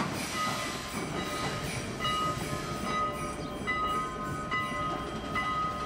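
Passenger coaches rolling past on steel rails with a steady rumble of wheels. Repeated high-pitched squeals of wheel flanges on the rail come and go, each about half a second long and always at the same pitch.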